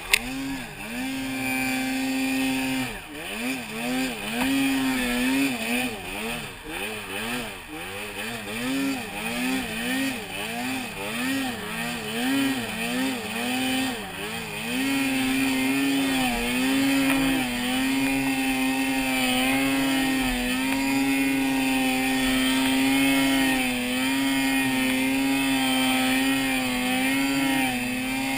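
Arctic Cat M8 snowmobile's 800 cc two-stroke engine working hard through deep powder. For the first half the revs swing up and down about once a second, then from about halfway they hold steady and high at full throttle.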